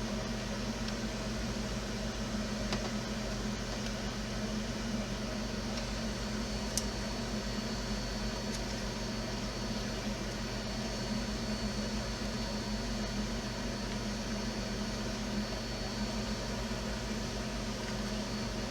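Steady low mechanical hum, with a few faint clicks about three and seven seconds in.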